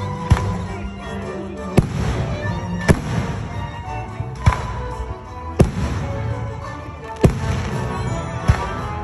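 Aerial firework shells bursting overhead: seven sharp bangs spaced about a second to a second and a half apart, with music playing underneath.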